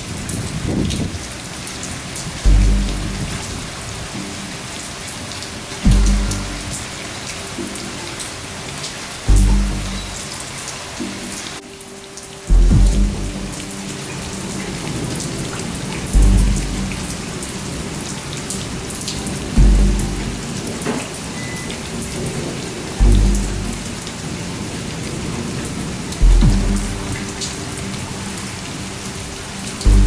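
Steady rain, with scattered drips and patters, over a looped soundtrack: a deep low boom with a held chord recurs about every three and a half seconds.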